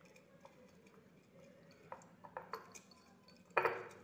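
Pieces of cinnamon bark being handled, broken and dropped into a vessel: scattered small clicks and clinks, with one short, louder crackle about three and a half seconds in.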